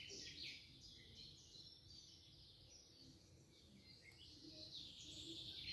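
Faint songbirds chirping, many short quick notes overlapping, over a low background noise.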